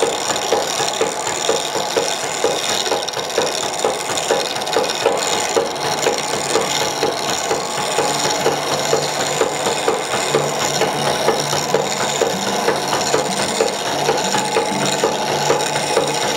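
Wooden treadle lathe running while a hand turning tool cuts a spinning wooden knob: a steady scraping hiss from the cut over a regular knocking, a few times a second, from the pedal-driven drive.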